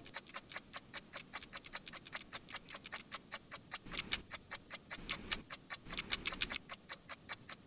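Rapid, regular ticking clicks, about six to seven a second, a little louder in the middle: a clock-like ticking sound effect.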